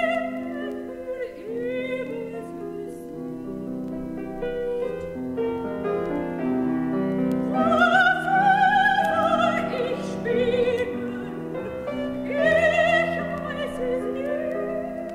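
A soprano singing a classical art song with piano accompaniment. Her long notes are sung with vibrato and swell loudest about eight and again about thirteen seconds in.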